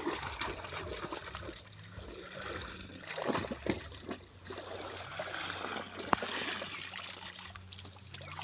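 River water trickling and splashing, with a few sharper splashes about three and six seconds in, as the water is stirred during fishing.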